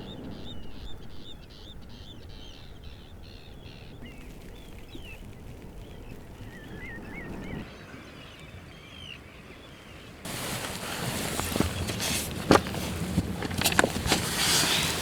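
Small shorebirds calling in short, rapid rising chirps, thinning out to scattered calls and a brief trill. About ten seconds in, close, louder rustling and crackling with sharp clicks takes over.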